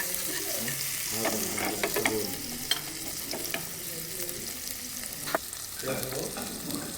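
Eggs frying in hot oil in a pan, with a steady sizzle and a few sharp clicks.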